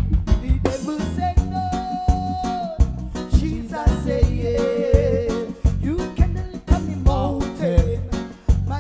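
Live band playing a reggae groove, heard from right behind the drum kit: drum hits and cymbals up front over a steady bass and a melody line with long held notes.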